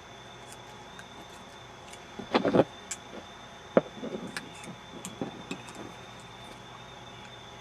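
Combination padlock being worked with a thin aluminium can shim: metal rattling and clicking as the shackle and shim are jiggled, loudest in a short rattle about two seconds in, then a sharp click and a few lighter clicks.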